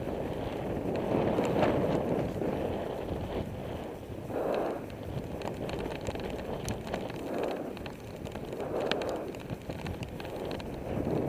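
A bicycle rolling along a paved path, with wind rushing over the microphone in swells and a few small clicks and rattles from the bike.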